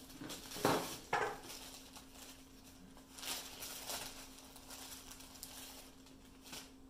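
Clear plastic zip bag of cotton swabs crinkling as it is picked up and opened. Two sharp crinkles come about a second in, and more rustling follows a few seconds later.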